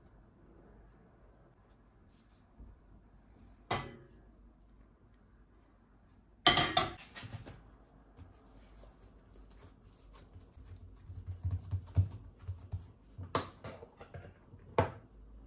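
Kitchenware being handled: scattered sharp knocks and clinks, the loudest about six and a half seconds in, with a run of lighter rattling a few seconds later.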